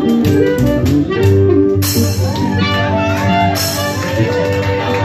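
Small blues/jazz trio playing live: an archtop guitar, an upright bass plucked underneath and a washboard keeping a steady scraping rhythm.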